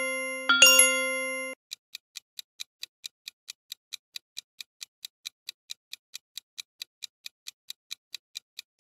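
A short chime with a low tone and bright overtones rings about half a second in and dies away. Then a countdown-timer sound effect ticks steadily, about five ticks a second, clock-like, while the quiz waits for an answer.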